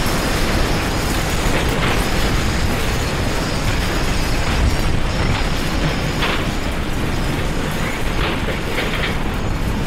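Loud continuous rumbling and rattling with scattered knocks, as in strong earthquake shaking.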